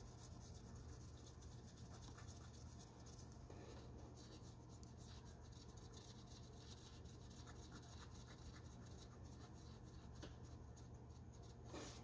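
Near silence: faint scratching and light clicks of hands working on parts, over a steady low hum, with one slightly louder brief sound near the end.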